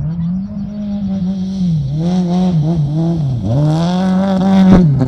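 Rally car engine approaching hard on a gravel stage. The revs rise and dip again and again as the driver lifts and shifts, and it grows louder until the car passes near the end, loudest there with a brief crackle.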